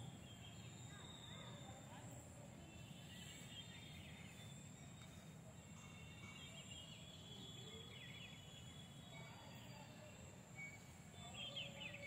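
Faint rural outdoor ambience: birds chirping now and then, a little louder near the end, over a low steady rumble and a constant high-pitched whine.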